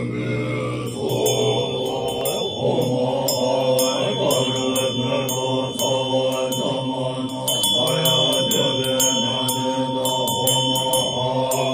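Tibetan Buddhist monks chanting a mantra together in low, sustained voices. From about a second in, rapid high clinking runs over the chant.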